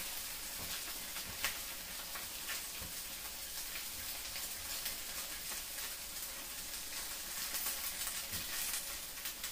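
Dumplings pan-frying in oil in a skillet: a steady sizzle with a few light clicks.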